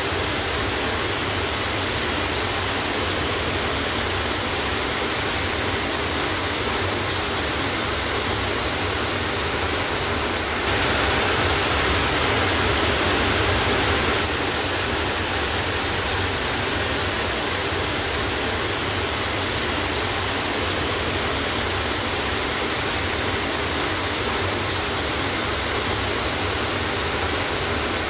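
Steady, even rushing noise with no pitch or rhythm, a little louder for about three and a half seconds in the middle.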